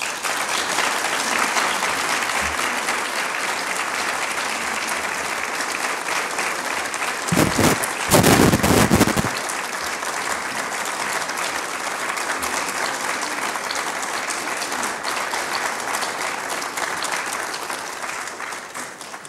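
Congregation applauding steadily, with a louder, fuller rush of noise for about two seconds near the middle and the clapping fading near the end.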